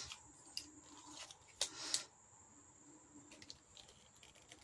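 Faint handling of small packaging: a few scattered crinkles and clicks, the loudest a short rasp about two seconds in.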